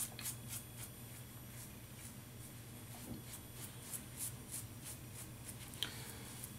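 Double-edge safety razor (Pearl Hammer, closed comb) scraping through lathered neck stubble in short passes, a faint rasp with each stroke. The strokes come about three a second in the first second and again from about four seconds in, with a sharper click near the end.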